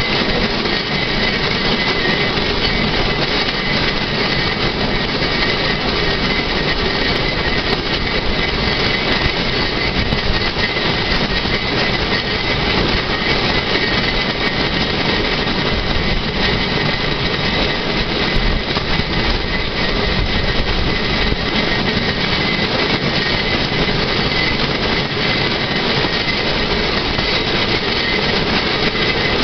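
Swedish pedal rail trolley rolling along an old, overgrown track: the steady rumble and rattle of its steel wheels on the rails, unbroken throughout.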